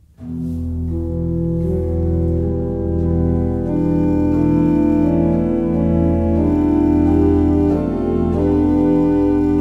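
Church pipe organ playing slow, held chords over a low sustained bass line, starting just after a moment's silence.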